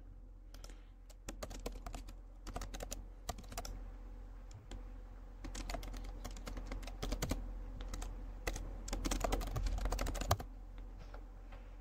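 Typing on a computer keyboard: quick, irregular key clicks in runs with short pauses, as a line of text is entered.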